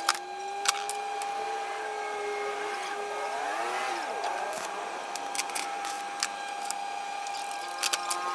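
A machine's electric motor running with a steady whine, with scattered sharp metal clicks over it.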